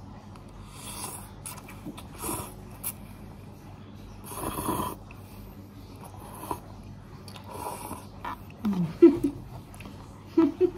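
Someone slurping Korean instant noodles in noisy gulps, about four times, the loudest and longest about halfway through, followed near the end by a few short vocal sounds.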